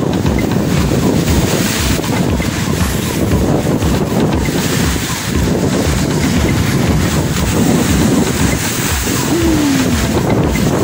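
Strong southwest-monsoon wind buffeting the microphone in steady gusts, over choppy sea waves washing and splashing against a concrete seawall.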